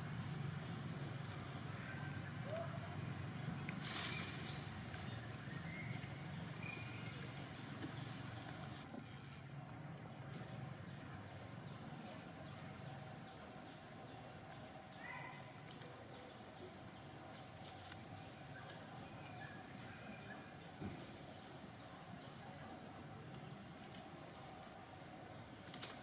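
Steady high-pitched insect drone over a low background rumble, with a few faint short chirps and a single click about four seconds in.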